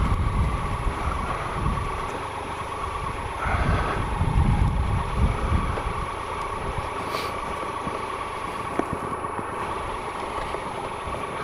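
Triumph Explorer XCa's 1215cc three-cylinder engine running at low speed as the motorcycle moves along, with low rumbling that swells for a couple of seconds about three and a half seconds in.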